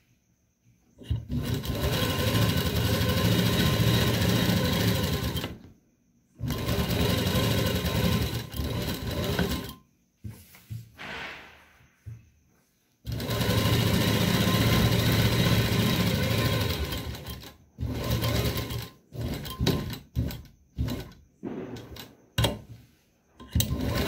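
Sewing machine stitching a topstitched seam through satin, running in long steady spells of a few seconds with short stops between, then in a string of short bursts near the end as the seam is finished.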